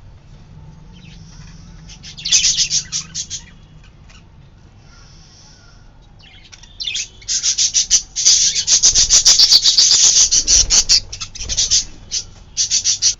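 Budgerigar chicks calling in rapid trains of chirps. A short burst comes about two seconds in, then a longer, louder run from about seven to twelve seconds, and a last brief burst near the end.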